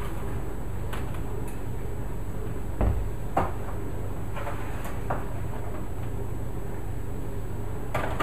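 Metal baking sheets clunking and scraping against the wire racks of an open oven as trays of cookies are moved in and out: a handful of separate knocks spread over several seconds, the largest near the end, over a steady low hum.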